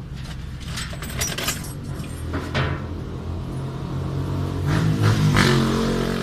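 A low engine hum from a nearby running vehicle, growing louder about two-thirds of the way in, with small clicks and rustles as a wire is handled and fastened to a fuel-tank float sender's terminal.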